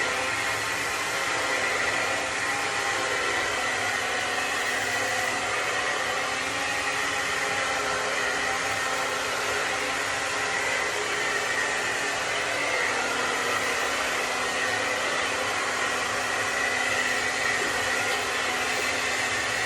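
Electric hair dryer blowing steadily, with a continuous whoosh of air and a high steady whine from the motor.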